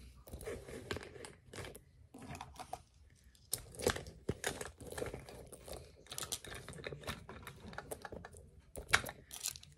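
Small items such as lip balm tubes, lip gloss and a lighter being dropped and shuffled back into a small zippered coated-canvas pouch: irregular plastic clicks and rustling of the bag, with two sharper clacks about four seconds in and near the end.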